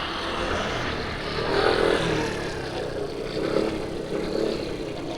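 Street traffic: a motor vehicle's engine passing close by. Its sound swells about a second and a half in and fades near the end.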